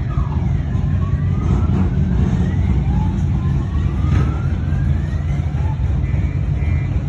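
Motorcycle engines rumbling loudly as they ride along the street, their pitch rising several times as they accelerate.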